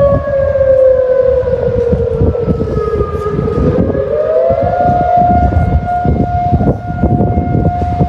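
Civil-defence air-raid siren sounding the air-raid alert signal in a test. Its pitch sinks slowly for about three and a half seconds, climbs back up within about a second, and then holds steady.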